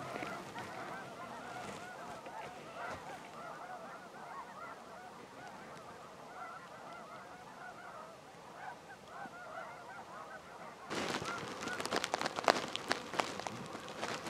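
A large flock of snow geese calling, many overlapping honks in a steady chorus. About eleven seconds in, loud crackling rustles start and cover the calls.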